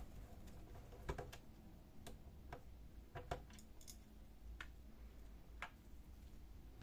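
Faint, irregular clicks and ticks of a screwdriver unscrewing the two small screws that hold a hinge to a Samsung M2675F printer's plastic ADF cover.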